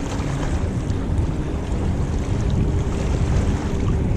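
Steady wind noise on the microphone over the low drone of motorboats out on the river, with small waves lapping at the shore.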